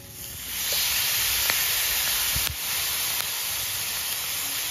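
Soy sauce poured into a hot pan of king oyster mushrooms, sizzling loudly. The sizzle swells up within the first second and then stays steady, with a few small pops.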